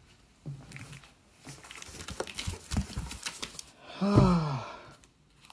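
Crinkling and rustling of plastic comic-book bags and corrugated cardboard packaging being handled and pulled apart. A short vocal exclamation falls in pitch about four seconds in.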